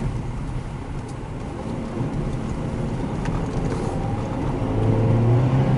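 Car engine and tyre rumble heard from inside the cabin while driving on a snow-packed road. The engine note grows louder about five seconds in as the car pulls harder.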